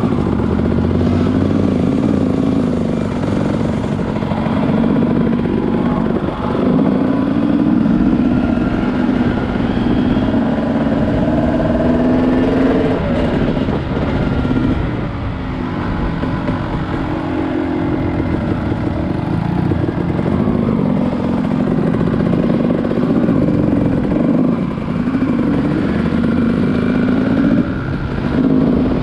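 Small vehicle engine running under way, its pitch rising and falling again and again as it speeds up and eases off.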